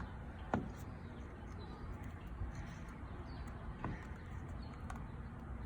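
A few faint clicks from the plastic body of a Ring battery video doorbell as hands grip its sides and tug it against its mounting bracket, the sharpest about half a second in, over a low steady hum.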